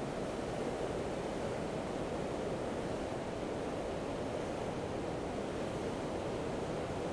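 Steady rushing roar of floodwater pouring over a dam spillway and churning in the river below, the river in full flood.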